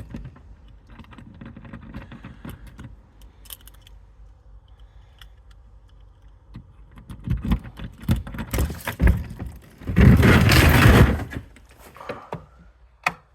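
Keys jangling and a lock and door being worked at a garage door: light clicks and rattles, then a series of knocks, and near the end a loud scraping rush of about a second as the door is pulled open, followed by a sharp click.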